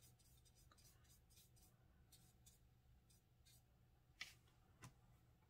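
Near silence with faint, scattered clicks and light scrubbing from a small paintbrush mixing watercolour in a plastic paint tray; two slightly louder taps come a little after four seconds in and just before five.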